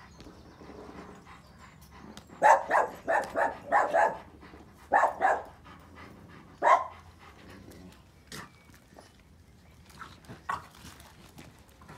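A dog barking: a quick run of short barks, then a few single barks spaced out.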